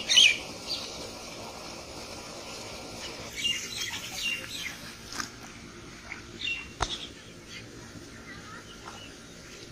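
Birds chirping in short, repeated calls, the loudest right at the start, with one sharp click about seven seconds in.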